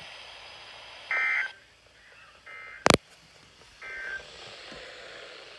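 Three short bursts of warbling SAME digital data tones from a NOAA Weather Radio broadcast, a little over a second apart. This is the EAS end-of-message code sent at the close of the warning. A sharp click sounds about three seconds in.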